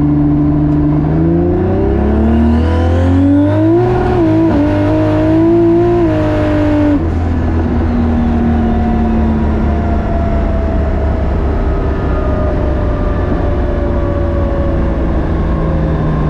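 Modified Toyota Supra 2JZ inline-six, heard from inside the cabin, pulling up through the revs for a few seconds, then lifting off about seven seconds in, with the engine note dropping and slowly falling as the car coasts.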